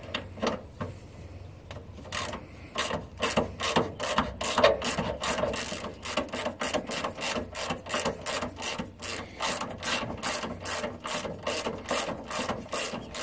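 Hand ratchet with socket and extension undoing a rear shock absorber's lower mounting nut: a run of pawl clicks, sparse in the first few seconds, then steady at about three or four a second.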